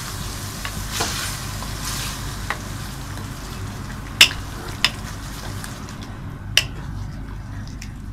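Wooden spatula stirring and scraping chunks of yogurt-marinated chicken around an aluminium pot, the chicken frying with a steady sizzle that fades near the end. About halfway through the spatula knocks sharply against the pot three times.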